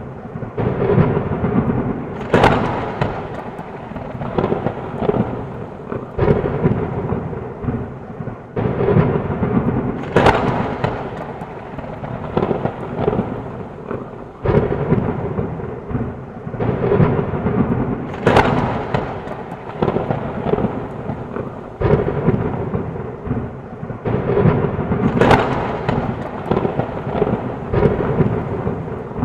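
Heavy rain falling steadily with rolling thunder, rumbles swelling and fading over the rain, and four sharp thunder cracks about eight seconds apart.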